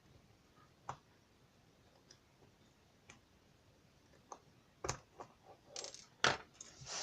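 Small metallic clicks, taps and scrapes from a lock and tools being handled as the lock is taken apart with a screwdriver: a few single clicks at first, then a busier run of clicks and scraping in the last couple of seconds, with one sharp click standing out.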